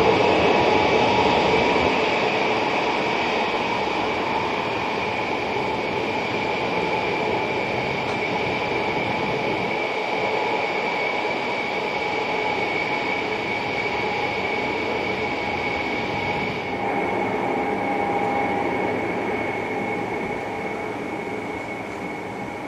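Four Soloviev D-30KP turbofans of an Ilyushin Il-76TD whining steadily at taxi power as the freighter taxis away, several steady tones over a rushing noise, slowly fading. About 17 seconds in the highest hiss drops away suddenly.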